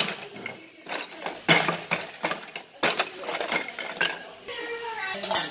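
Plastic toy fruit and vegetable pieces clattering against each other and against a metal baking pan as a hand rummages through them, in a string of irregular knocks.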